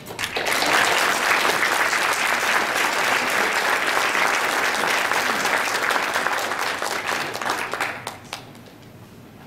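Audience applauding, beginning just after the start, holding steady, then dying away to a few scattered claps near the end.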